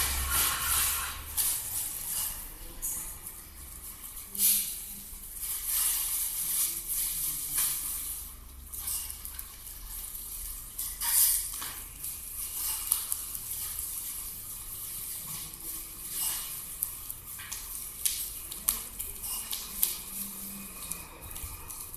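Ritual fire in a brick homa fire altar crackling and hissing, with scattered sharp crackles and pops over a soft hiss.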